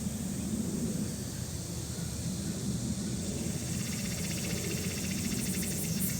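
Steady outdoor background noise: a low rumble under a high hiss, with a faint rapid insect trill coming in about four seconds in.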